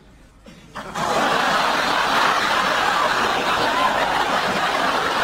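Studio audience laughter that starts suddenly about a second in and carries on loud and steady.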